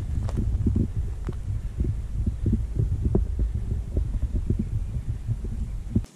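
Wind buffeting the microphone: a steady low rumble broken by irregular muffled thumps, which cuts off suddenly near the end.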